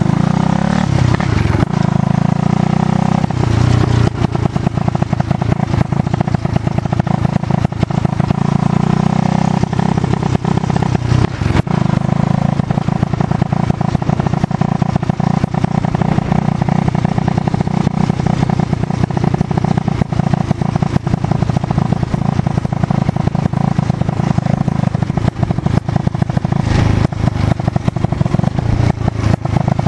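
Motorcycle engine running as it is ridden along, its note rising and falling a few times with the throttle.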